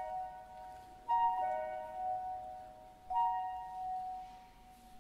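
Soft instrumental background music: slow, sustained keyboard chords, a new chord struck about every two seconds.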